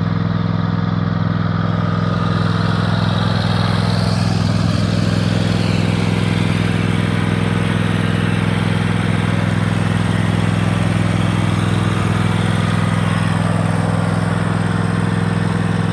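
Engine of a Cub Cadet XT1 riding lawn tractor running steadily at a constant speed.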